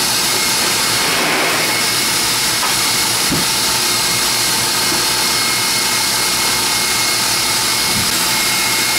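KitchenAid stand mixer motor running steadily at raised speed, driving a pasta roller attachment as a sheet of pasta dough feeds through; a steady whine over a constant whir.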